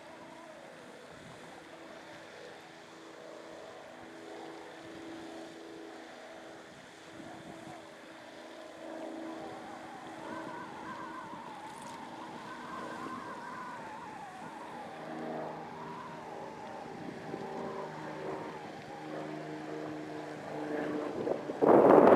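A distant engine drones steadily, its pitch wavering up and down. Near the end a loud burst of wind buffets the microphone.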